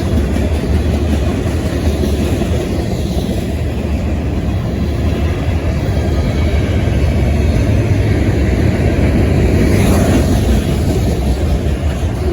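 Train passing close by: a steady low rumble of the rolling cars, swelling a little about ten seconds in.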